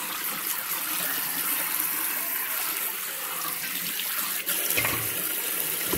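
Kitchen tap running cold water over cooked lasagna noodles in a metal colander in the sink: a steady splashing hiss. A short knock comes about five seconds in.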